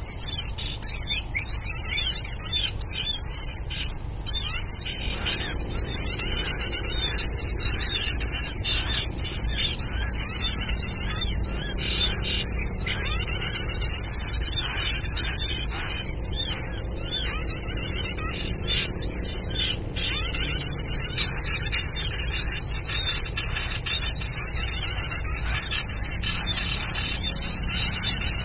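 Bird-lure recording played through a speaker: a busy, almost unbroken chorus of rapid high-pitched sunbird chirps and trills, used to draw wild sunbirds to lime sticks.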